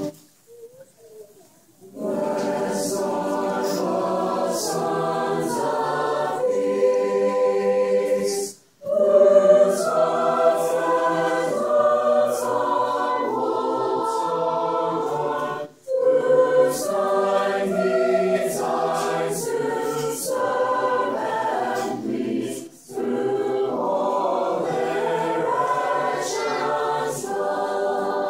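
Large mixed choir singing a hymn a cappella, entering about two seconds in and moving in long phrases with brief pauses for breath between them.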